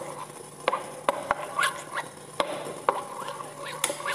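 Metal spoon stirring melted white chocolate in a stainless steel bowl, knocking against the sides in irregular sharp clicks over a faint steady hum.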